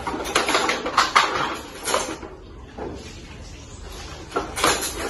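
Wooden jacquard handloom clattering as the weaver works it: sharp wooden knocks and rattles, a busy cluster in the first two seconds and another sharp knock near the end.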